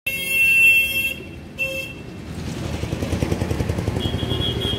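A vehicle horn honks twice, a loud blast of about a second and then a short one, over steady street traffic noise. A fainter, higher horn sounds near the end.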